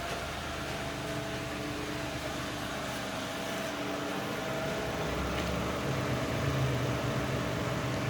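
Mirage car engine running steadily at idle, with a steady whine held over the engine note; the lower hum grows a little louder about five seconds in.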